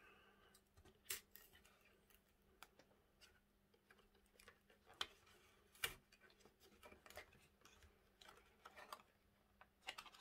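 Faint scattered clicks, taps and crinkles of hands opening a small cardboard ration box and easing out its foil-wrapped contents, with a few sharper clicks about a second in, around the middle and near the end.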